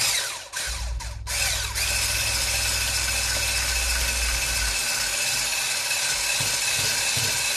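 Hand-held immersion blender running in a bowl of vegan cream cheese and plant milk, stirring the mixture creamy. It pulses on and off briefly two or three times, then runs steadily with a constant motor whine.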